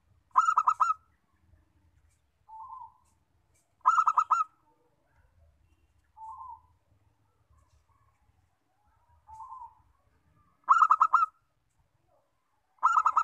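Zebra dove (perkutut) singing: four loud phrases of rapid staccato coos, each under a second long, with a softer single coo in the gaps between them.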